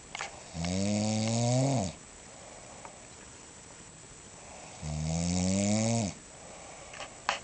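A person snoring: two long snores about four seconds apart, each a pitched rasping drone that rises in pitch just before it stops.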